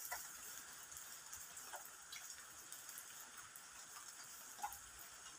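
Near silence: faint background ambience with a few soft, scattered ticks.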